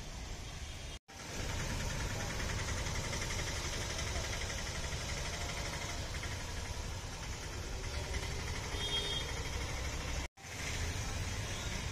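Auto-rickshaw engines running as the three-wheelers drive through a flooded street, with a steady low rumble of traffic. The sound cuts out abruptly for a moment twice, about a second in and near the end.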